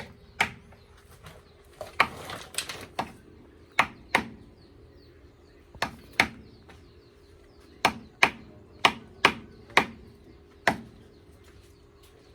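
Hammer blows: about fourteen sharp knocks in irregular runs, several in quick pairs, with pauses of a second or more between runs.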